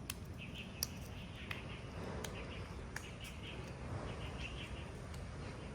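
Small birds chirping in short repeated bursts over a steady low rumble, with a few sharp clicks, the loudest just under a second in.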